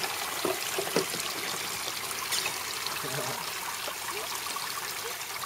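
Water trickling and splashing steadily in a plastic toy water table, running down in streams from the upper tray into the basin. A few light plastic knocks come in the first second.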